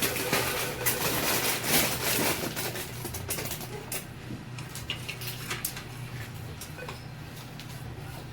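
Clattering and clicking from hands working on a toy vending machine, dense for the first couple of seconds and then a few scattered clicks, over a steady low hum.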